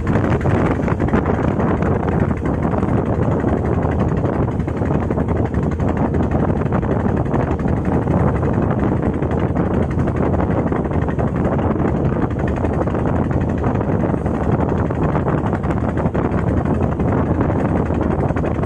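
A fishing boat under way through a rough sea in strong wind: a loud, steady rush of wind buffeting the microphone over the boat's running and the water.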